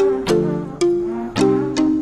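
Background music of plucked notes, a new note starting about every half second and dying away.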